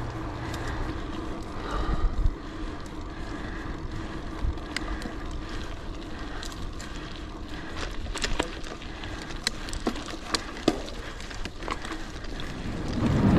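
Gravel bike with Terravail Rutland 650b × 2.1 tyres rolling and climbing on a dirt trail: a steady rolling noise from the tyres on dirt and loose gravel, with scattered sharp clicks and ticks that come thickest near the end, and wind on the microphone.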